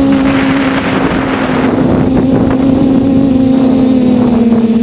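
Quadcopter's brushless motors (Tiger Motor 2216 800kv) spinning 10x5 propellers, a steady hum heard from the onboard camera, with a rush of wind on the microphone in the first second or two.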